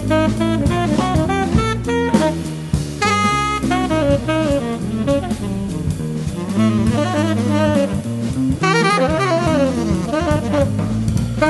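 Live jazz from a saxophone trio: a tenor saxophone plays a melodic line with some sliding runs over a semi-hollow electric bass and a drum kit.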